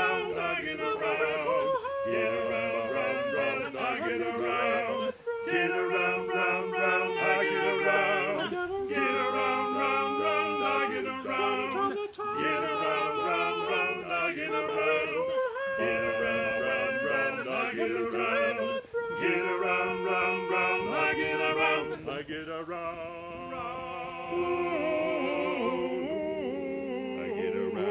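Male voices singing a cappella in close harmony, long held chords that change every second or two. It grows softer about three-quarters of the way through and stops just before the end.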